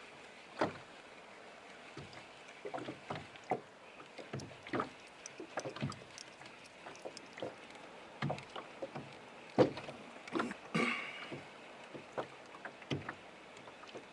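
Water slapping against the hull of a small boat, with irregular light knocks and clicks throughout and one sharper knock about two-thirds of the way in.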